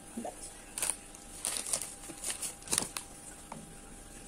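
Paper tissue rustling and crinkling in several short bursts as it is handled and pressed to the mouth and nose.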